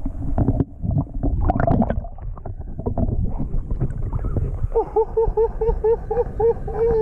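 Water sloshing and gurgling around a camera held underwater and lifted out after a bass release. Near the end, a quick run of about ten short pitched notes, about four a second, ends on a longer falling note.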